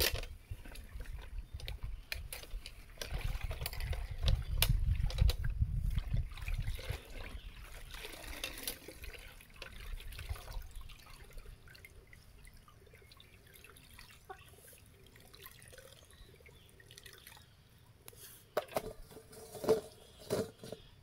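Water splashing and sloshing in a metal bucket as bunches of bottle gourd leaves are swished through it and lifted out, then dripping and trickling back into the bucket. A few sharp knocks near the end.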